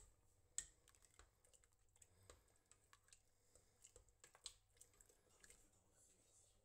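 Faint, scattered clicks and taps of a red cooking spoon stirring thick, chunky tomato salsa against a stainless steel pot, with a sharper knock about half a second in.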